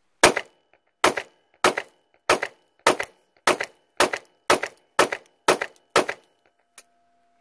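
Eleven 9mm pistol shots from a Polymer80 Glock 26 build (Rock Slide USA slide), fired at a steady pace about half a second apart, followed by a single faint click near the end. The slide does not lock back after the last round, a fault the shooter lays to the cheap extended magazine.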